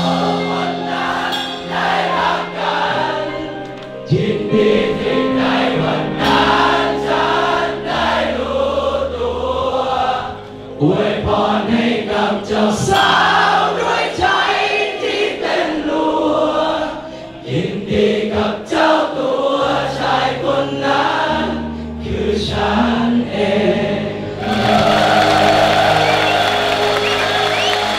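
A Thai pop song played live by a band, with many voices singing together. A little over three-quarters of the way in, the song gives way to cheering and applause.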